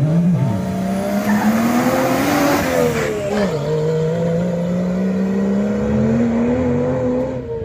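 A rally pickup truck's engine accelerating hard from a standing start. Its pitch rises, drops sharply at a gear change about three seconds in, then climbs again as the truck pulls away.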